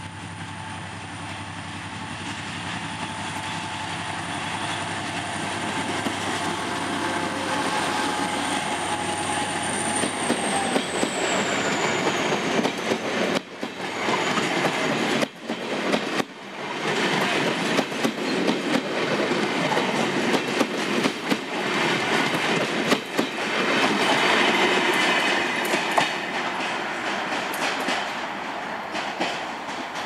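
EMD GT22 diesel locomotive approaching with a steady engine hum and a high whine that drops in pitch as it passes, about a third of the way in. Then the passenger coaches run past close by, their wheels clattering over the rail joints, louder toward the end.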